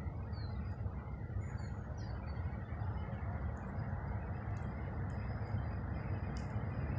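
Distant, steady rumble of an approaching ET42 electric locomotive and its train of loaded open freight wagons, slowly growing louder, with a few faint high chirps above it.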